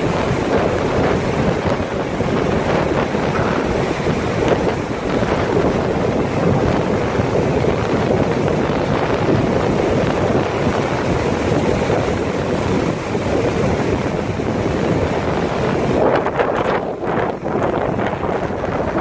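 Wind buffeting the microphone over the steady wash of breaking surf, a continuous rushing noise that wavers in level.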